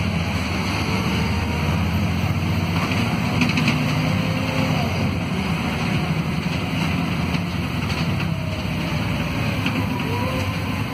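City bus's engine and ZF Ecomat automatic gearbox heard from inside the cabin, pulling in second and then third gear with the lockup clutch engaged. Over the steady engine drone and road noise, faint gearbox whines rise in pitch.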